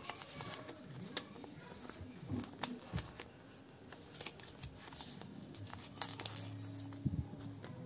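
Thin paper leaflets rustling and crinkling as they are handled and flipped, with several sharp paper snaps scattered through.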